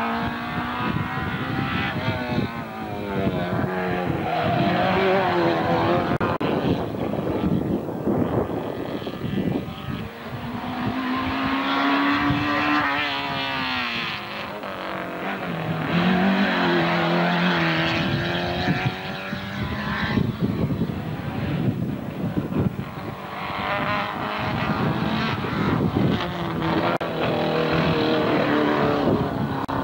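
Race car engines accelerating hard up a hill climb. The pitch climbs through each gear and drops at each shift, over and over as the cars come past.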